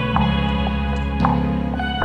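Gentle piano background music, with new notes struck a few times over sustained chords.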